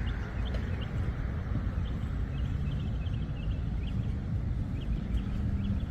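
Outdoor street ambience: a steady low rumble of traffic and wind on the microphone, with short high chirps scattered throughout.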